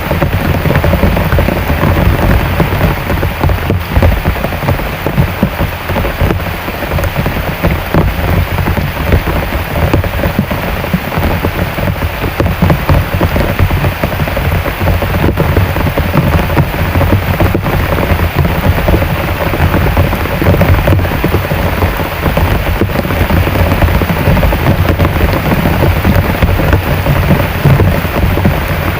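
Heavy rain falling steadily as a dense, even hiss, strongest in the low end.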